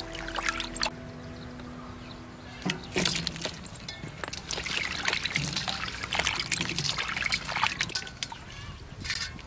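Hands stirring and rinsing meatballs in water in a stainless steel basin: irregular sloshing and splashing, with water trickling off. The splashing starts about three seconds in and thins out near the end.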